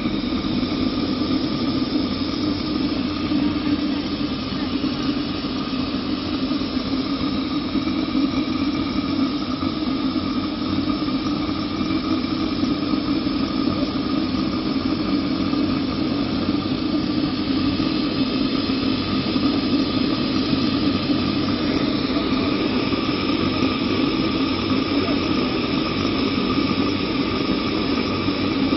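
Homemade pulse jet engine, built from hardware-store pipe fittings, running: a loud, steady, continuous buzzing drone.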